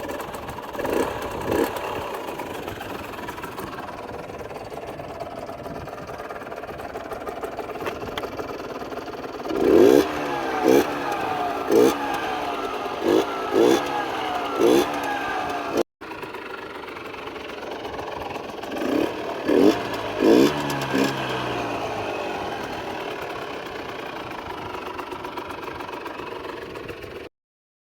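HM CRM 50 Derapage 50cc two-stroke motorcycle engine idling, with repeated short throttle blips whose pitch rises and falls. The blips come in two bursts of several each.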